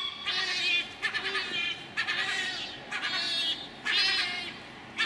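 Seagulls calling over and over, a string of loud, drawn-out, nasal calls about one a second.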